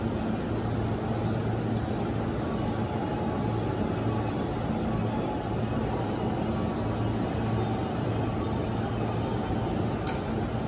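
JR East E233-1000 series electric train standing at the platform, its onboard equipment giving a steady low hum. A single short sharp click comes near the end.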